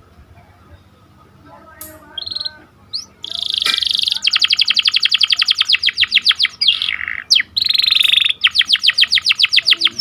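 Canary singing: a short high chirp, then from about three seconds in loud song, a held note followed by fast rolling trills of about ten notes a second, broken twice by short pauses.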